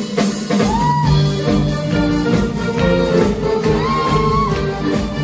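A large saxophone ensemble with piano and drum kit playing a piece together in concert, with a lead line that scoops up into held notes over the band.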